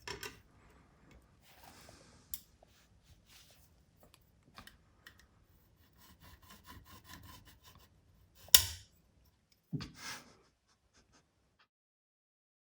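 Quiet rubbing and scraping with scattered small clicks, like objects being handled, then a sharp knock about eight and a half seconds in and two softer knocks just after.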